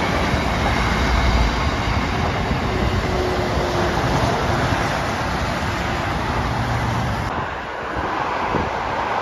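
Steady roar of traffic on a dual carriageway, with heavy lorries and a coach passing close below, mixed with the rumble of a long freight train of open box wagons running by on the line beyond. Near the end the high hiss drops away suddenly.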